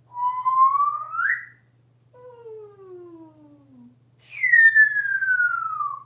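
African grey parrot giving three long gliding whistled calls: a rising one, a fainter lower one falling, and a loud falling one near the end.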